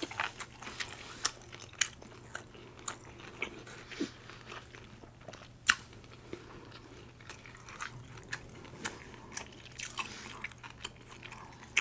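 A person chewing food close to the microphone: irregular small wet clicks and smacks of the mouth.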